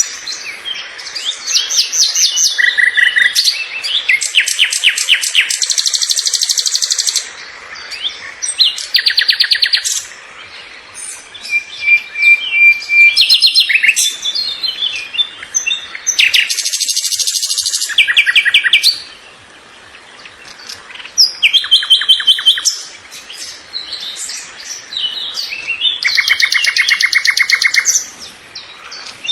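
Small birds chirping and trilling, in bursts of fast repeated high notes that come one after another with short pauses between.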